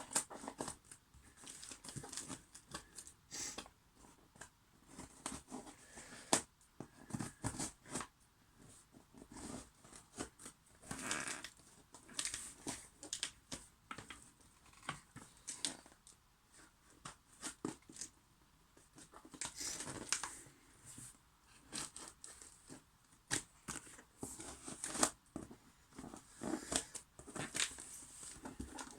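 A parcel of boxed puzzle cubes being opened and handled: irregular tearing and crinkling of packaging with scattered sharp clicks and knocks.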